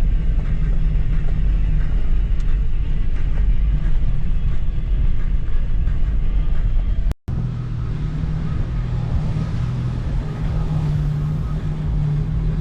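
Motor vehicle driving: steady engine and road rumble. About seven seconds in it cuts off abruptly to a different stretch of driving with a steadier low engine hum.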